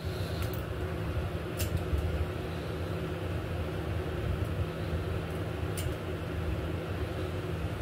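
Steady low machine hum, with a few sharp clicks of small pet nail clippers cutting a cat's claws.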